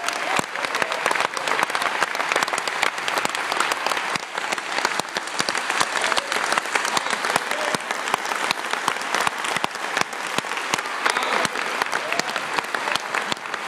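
Audience applauding steadily, many hands clapping at once with no letup.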